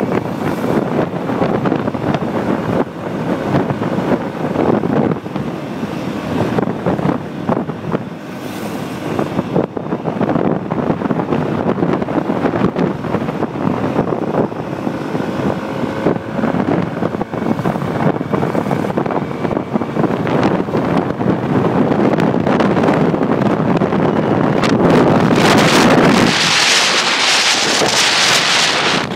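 Wind buffeting a phone microphone on a moving motorcycle, with the motorcycle's engine running under the rush of air. A louder, brighter rush of wind comes near the end.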